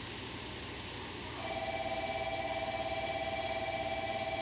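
An alarm bell starts ringing about a second and a half in and rings steadily for about three seconds, stopping at the end, over a steady low rumble.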